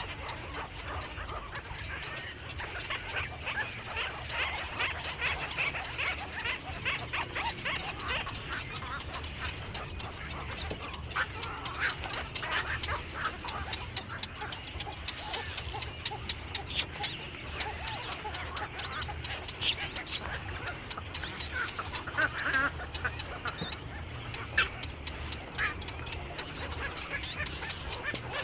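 Many birds chattering and calling together in a dense, continuous stream of short calls, over a steady low hum.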